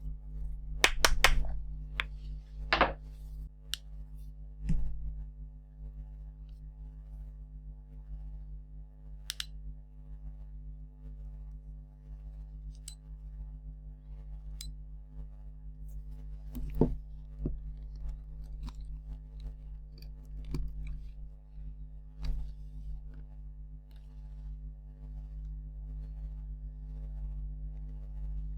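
Scattered clicks and light knocks of small parts and tools being handled on a workbench, with a cluster of quick clicks about a second in and single ones spread through the rest, over a steady low hum.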